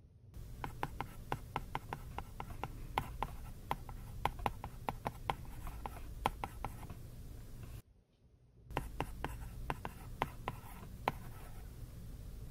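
Apple Pencil tip tapping and scraping on an iPad's glass screen while writing large handwritten characters: quick runs of sharp clicks, with a brief break about eight seconds in, then another run.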